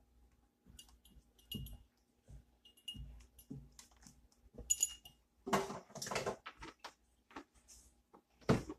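Scattered light clinks and taps of a measuring cup against a glass mixing bowl as milk is poured in, with a louder rustling, scraping stretch about halfway through and a sharp knock near the end.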